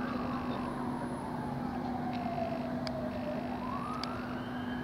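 A siren wailing slowly, its pitch falling for about three seconds and then rising again, over a steady low hum.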